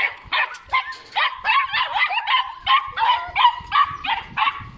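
A dog barking rapidly and continuously, about four barks a second.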